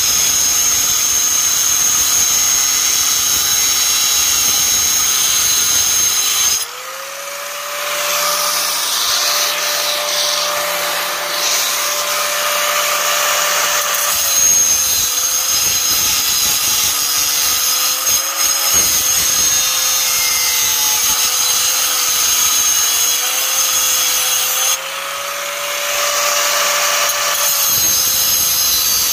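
Angle grinder cutting through a metal strut of a car seat frame, the motor's whine pulled down under load. Twice it comes off the metal for several seconds, the cutting noise drops away and the motor runs free at a slightly higher pitch, then it bites in again.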